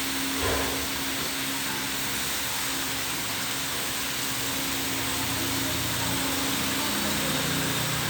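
Steady whirring of a ventilation fan with a constant low hum, and a brief soft bump about half a second in.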